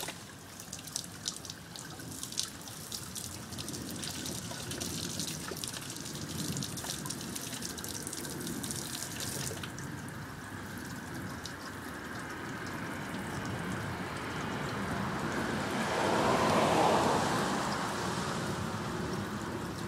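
Spring water running from a pipe and splashing, with many crisp drips and splatters in the first half and a louder swell of water for a few seconds near the end, as a sterile sample container is filled at the flow.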